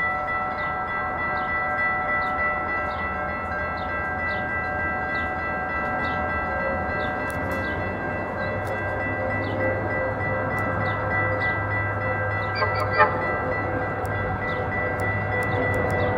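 Railroad grade-crossing warning bells ringing steadily with a regular strike about once a second. Under them the low rumble of an approaching Metra diesel locomotive grows from about halfway through. A single brief sharp knock sounds about three-quarters of the way in.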